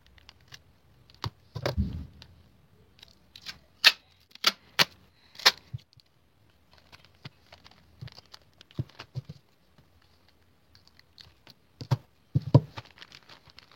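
Scattered sharp clicks and taps from a parcel being handled and packed, with a dull thump about two seconds in and two more near the end.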